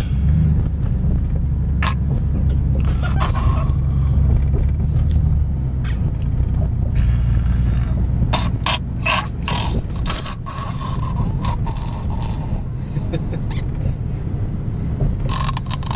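A sleeping child snoring, with several rasping snores a few seconds apart, over the steady low rumble of a car on the road.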